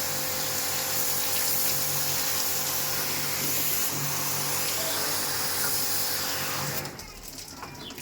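Electric pressure-washer pump spraying a jet of water during air conditioner cleaning: a steady hiss of spray over the motor's hum, cutting off suddenly about seven seconds in.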